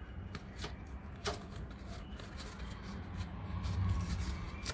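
Scattered light clicks and rustles of hands working at the brass service valves and copper pipe fittings of an air conditioner's outdoor unit, over a low steady rumble.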